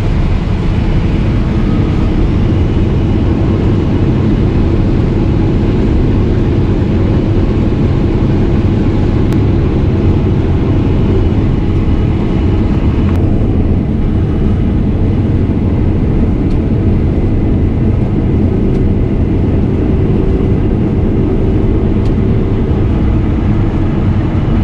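Case IH 8230 combine running steadily under load while harvesting soybeans: a loud, continuous mechanical drone of engine and threshing machinery, the higher hiss easing slightly about halfway through.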